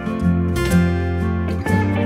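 Background music with strummed acoustic guitar, changing chords every second or so.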